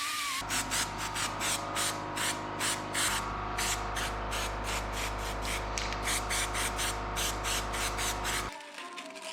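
Background music with a fast hissing beat, about three to four strokes a second, over sustained chords and a bass line; it cuts off abruptly near the end.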